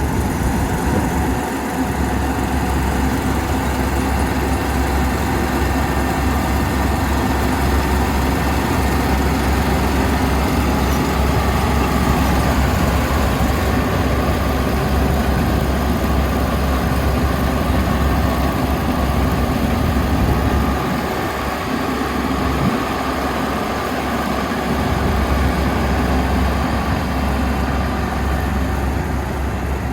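Kubota ER470 combine harvester's diesel engine running steadily with a deep rumble, which eases for a few seconds past the middle.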